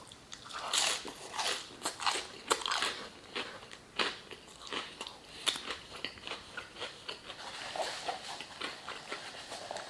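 Close-up eating sounds: a person biting and chewing crispy fried chicken, with irregular crunchy, crackling bites of the fried breading.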